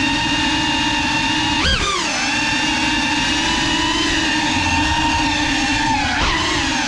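Electric motors and ducted propellers of a GEPRC Cinelog 35 cinewhoop whining steadily in flight. The pitch jumps sharply up and falls back just under two seconds in, and dips and climbs again near the end, as the throttle is changed.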